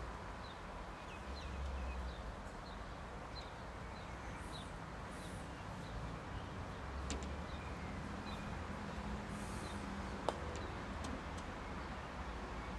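Outdoor ambience: a steady low rumble of wind on the microphone, with a small bird chirping repeatedly. There is a single sharp knock about ten seconds in.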